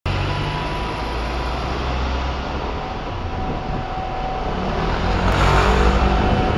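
Street traffic heard from outside a moving vehicle: a steady low engine hum over road noise, swelling louder about five seconds in as a red double-decker bus passes close alongside.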